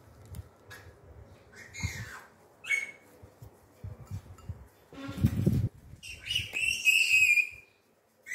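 Several short, high, whistle-like animal calls with gliding pitch, then a longer call of about a second and a half near the end. There is a loud dull thump about five seconds in and light knocks from handling.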